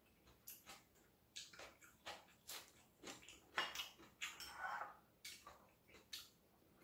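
A person eating: faint chewing and mouth sounds, with light clicks of chopsticks against dishes, in a string of short, soft sounds.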